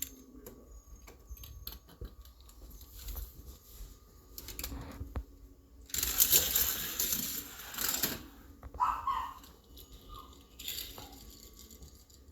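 Die-cast Hot Wheels cars clicking and clattering on plastic track, with a louder rattling run of the cars from about six to eight seconds in.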